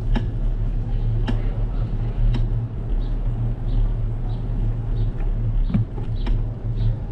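Bicycle rolling along a paved street, heard from a GoPro mounted on the bike: a steady low rumble of tyres and wind with a few sharp rattling clicks from bumps.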